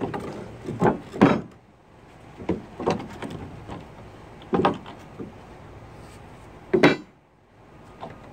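A pry bar levering up a weathered wooden deck board: about six short, sharp creaks and knocks of wood, spaced unevenly over several seconds, the loudest about a second in and near the end.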